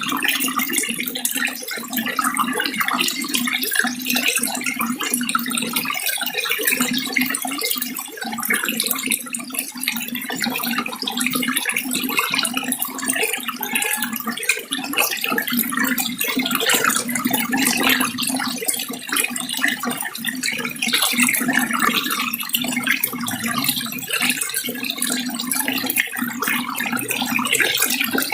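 Water running steadily in a continuous splashing flow, without pauses.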